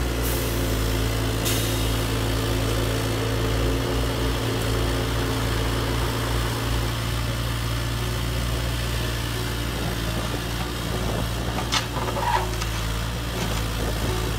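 Radio-controlled heavy construction models running: a steady, engine-like idling drone with no change in pitch. A few sharp clicks come near the end.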